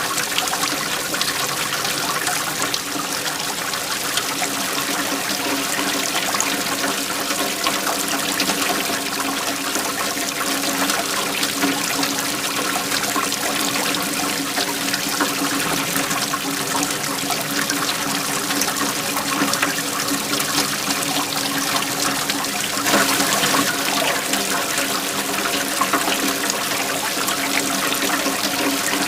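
Waterfall: a steady rush of falling, splashing water that grows slightly louder about three-quarters of the way through.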